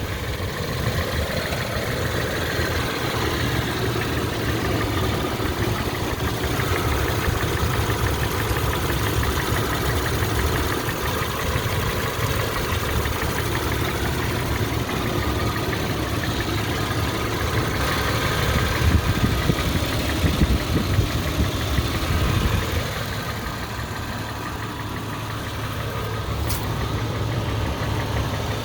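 Toyota FJ Cruiser's 4.0-litre V6 running with a fast, even ticking from the valvetrain, which the owner suspects is noisy lifters. There is a single sharp click near the end.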